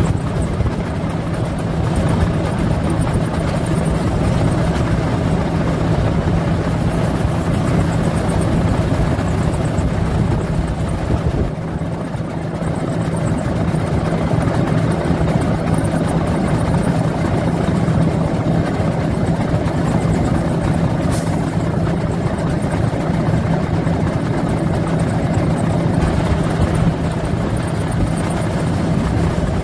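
Large truck's diesel engine running steadily and loudly, with a constant low hum over the engine's clatter.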